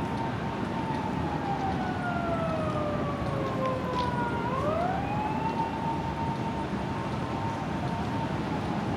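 Police siren of a Tokyo Metropolitan Police accident-response van (Nissan Caravan) wailing on an emergency run. The tone holds, slowly falls, then rises quickly about halfway through and holds again. Steady expressway traffic noise runs underneath.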